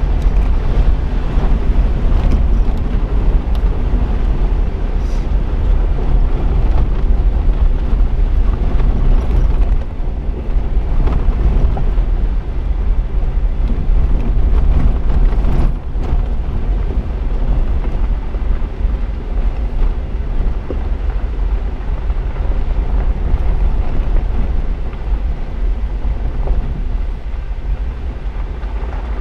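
Jeep driving on a dirt and gravel trail, picked up by a camera on the hood: a steady low rumble of engine, tyres and wind buffeting the microphone, with a few faint ticks.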